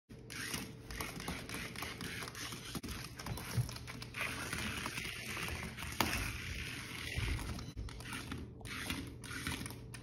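Small remote control toy car's electric motor whirring in short runs on a hardwood floor, cutting out briefly several times near the end, with faint clicks throughout.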